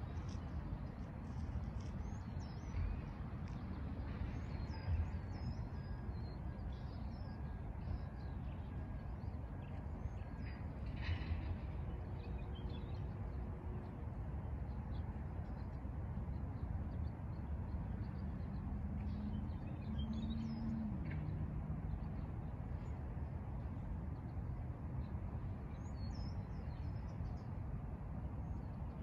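Outdoor ambience: scattered short bird chirps over a steady low rumble, with a faint hum rising and falling in pitch around two-thirds of the way through.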